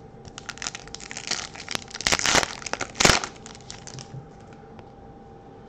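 Foil wrapper of a Topps Chrome trading-card pack crinkling as it is handled and torn open, with the loudest crackles about two and three seconds in.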